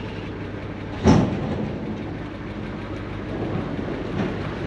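1973 Chevy C65 fuel truck's engine idling with a steady low drone. A sharp thump about a second in is louder than the engine, and a lighter knock comes near the end.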